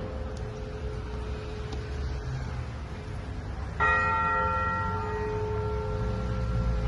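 A church bell ringing: one stroke dies away, then a single loud strike nearly four seconds in whose tone lingers, over a low background rumble.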